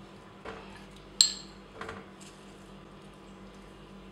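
A few light knocks and clinks of kitchenware being handled, the loudest a sharp, ringing metallic clink about a second in.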